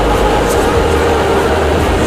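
Loud, steady machinery drone with a constant low hum and steady mid-pitched tones.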